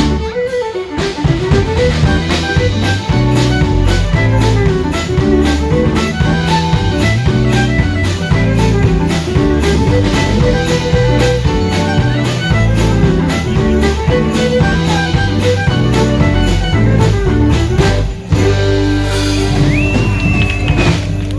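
Instrumental background music with a steady beat. About eighteen seconds in it breaks off briefly, then goes on with longer held notes.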